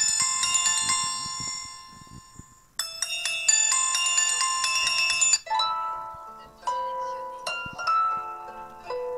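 Samsung Galaxy S4 Mini stock ringtones: a bright, bell-like melody fades out, starts over about three seconds in, and is cut off about halfway through. A different, lower melody of separate plucked notes then begins.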